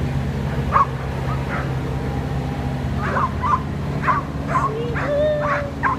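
A dog barking and yipping in short, repeated barks that come faster in the second half, over the steady hum of a running vehicle engine.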